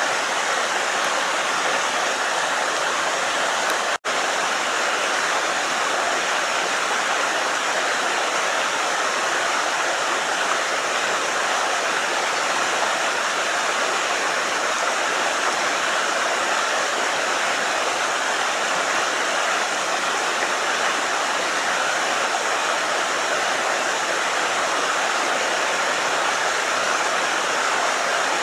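Creek water rushing in a steady, dense hiss. The sound cuts out for an instant about four seconds in.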